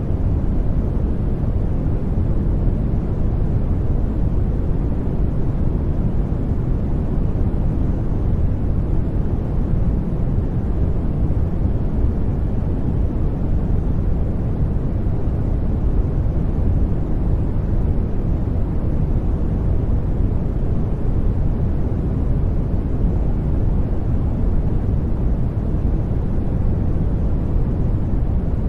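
Steady, unchanging generated noise, loudest in the low end and fading toward the top, so it sounds more like a deep rush than a bright hiss.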